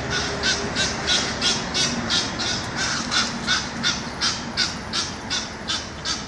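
Egyptian goose giving a long, steady run of harsh honking calls, about three a second, as an alarm while a swan chases its family.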